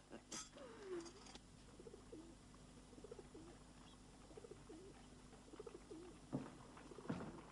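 Pigeons cooing faintly, a run of short, low coos repeating over several seconds. A couple of wooden knocks come near the end.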